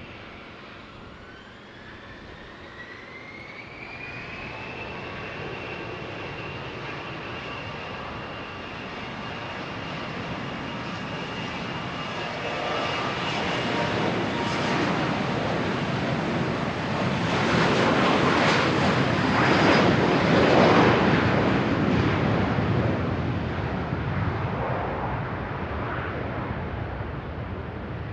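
Jet aircraft engines spooling up, with a whine that rises over the first few seconds and then holds steady. The engine noise swells to its loudest about two-thirds of the way through as the aircraft passes close, then begins to fade.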